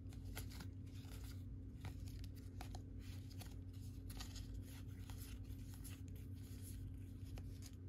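Paper baseball trading cards being thumbed through one at a time, the card stock sliding and flicking against the stack in quick, irregular rustles, over a faint steady low hum.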